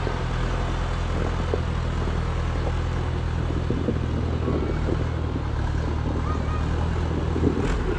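Engine running steadily close by, a constant low drone. A short knock near the end.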